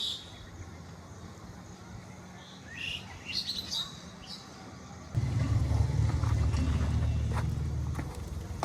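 Birds chirping a few times over a faint low hum; about five seconds in, a heavy engine comes in suddenly, much louder, with a low steady drone.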